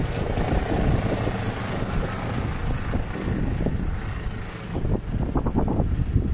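Wind buffeting the microphone in an uneven low rumble, with a quick run of short knocks about five seconds in.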